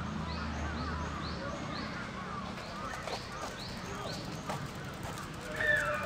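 Birds calling: a short, high, rising chirp repeated about twice a second, with fainter wavering calls beneath it and a louder, lower call near the end.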